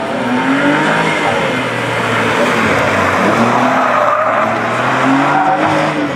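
BMW Z4 roadster driven hard through a cone slalom: the engine revs rise and fall repeatedly, with tyres squealing through the turns.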